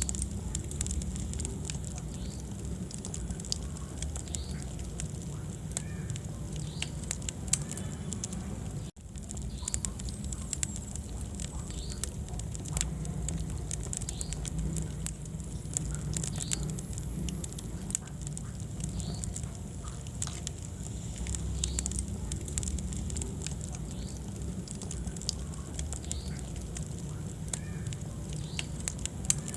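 Wood fire burning in a fireplace: a steady low rumble of flames with frequent sharp crackles and pops. The sound drops out for an instant about nine seconds in.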